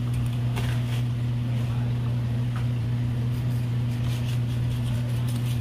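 A steady low mechanical hum, with faint scrapes and ticks as a filleting knife cuts a black sea bream fillet away from the backbone, most of them in the second half.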